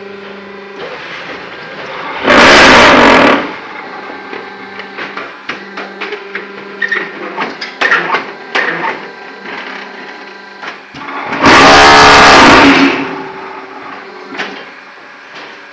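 ZCJK4-15 concrete block machine running, with a steady hum from its motor and scattered metal clanks. Twice, about nine seconds apart, it gives a very loud buzzing rattle lasting about a second and a half, the vibration stage that compacts the concrete in the block mould.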